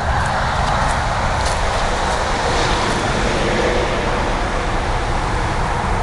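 Wind buffeting the microphone, a choppy low rumble under a steady rushing noise.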